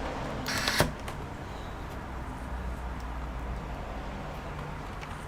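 Laptop reassembly handling: a short scrape ending in a sharp click about half a second in, over a steady low hum.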